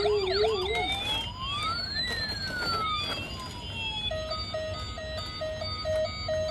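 Toy police car's electronic siren sound module cycling through its patterns. A fast warbling yelp changes, a little under a second in, to a slow wail that rises and falls once. About four seconds in it becomes a rapid beeping at about three beeps a second.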